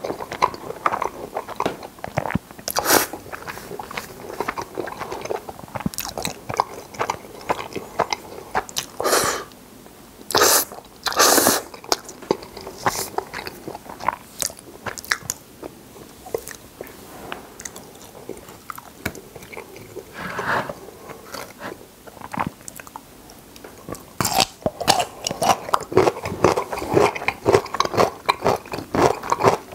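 Close-miked eating sounds of creamy carbonara spaghetti: wet chewing with several louder slurps in the first half. In the last few seconds comes a dense run of crisp crunching from a bitten sweet pickle.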